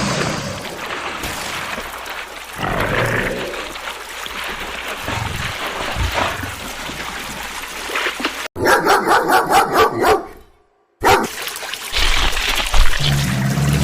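Animal calls cut together from several clips. In the second half comes a quick run of about eight calls, four or five a second, which stops abruptly.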